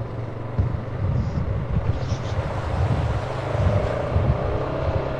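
Vehicle engine running low and steady while driving slowly over a rough dirt trail, with irregular knocks and jolts from the bumpy ground.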